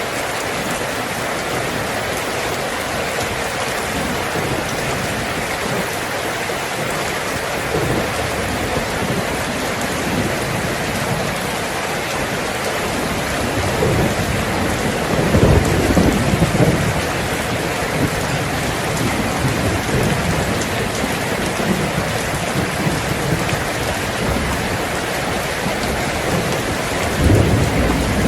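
Heavy rain falling steadily on a tin roof, with thunder rumbling: a longer roll about halfway through and a shorter one near the end.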